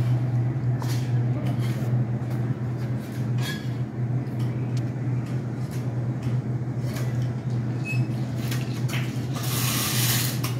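A steady low hum fills the room, with scattered light clicks and knocks over it and a short hiss about a second long near the end.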